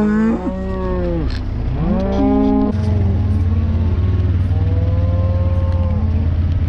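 Beef cows mooing repeatedly, several long calls, overlapping early on and fainter toward the end. A low steady engine hum from a vehicle comes in about three seconds in.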